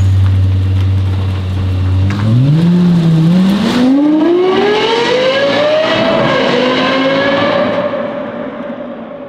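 Lexus LFA's 4.8-litre V10 running low, then accelerating hard from about two seconds in. The engine note climbs steeply to a high pitch, with two brief dips on the way, then holds and fades as the car pulls away.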